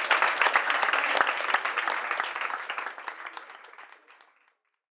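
Audience applauding, fading out over about four seconds.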